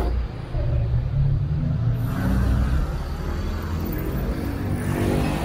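Low rumble of street traffic going by, steady throughout, growing noisier about two seconds in; a pitched hum, likely music, comes in near the end.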